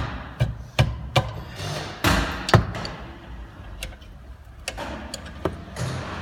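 Metal tools knocking and clinking on metal parts: a run of sharp, irregular taps like a hammer, a few close together near the start and more spread out later, with a short rush of noise about two seconds in.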